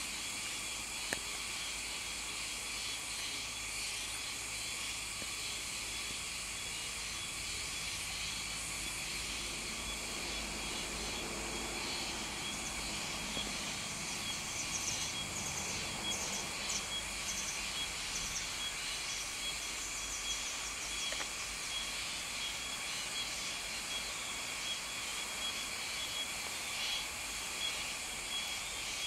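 Steady outdoor ambience: a high, even insect-like drone with hiss, and faint rapid chirping that comes and goes in the middle. A single sharp click about a second in.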